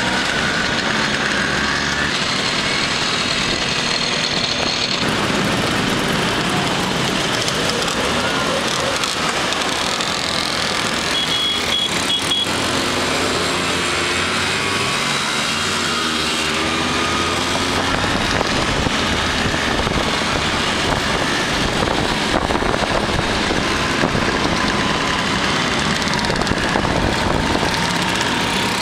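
A pack of Vespa and Lambretta-style motor scooters running together on the move, heard from among the riders: a dense, steady engine noise with individual engine notes rising and falling as riders throttle up and ease off.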